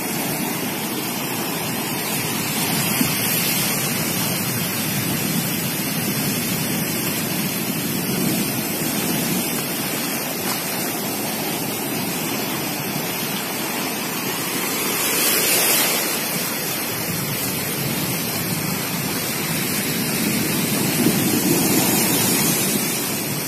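Storm-surge waves breaking and seawater rushing over flooded shore ground in a continuous wash of surf, driven by a cyclone. It swells louder as bigger waves break, about 3 seconds in, around 15 seconds, and again near the end.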